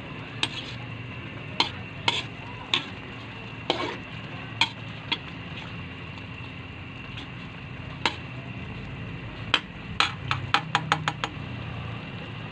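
A utensil stirring and tapping against a pan over a steady sizzle, with scattered sharp knocks and a quick run of about seven taps near the end.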